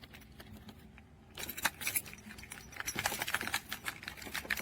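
Metal key clicking and scraping against the keyhole of a bike cable lock, jiggled repeatedly as it fails to go in, starting about a second and a half in. The lock is rusted up, so the key will not enter.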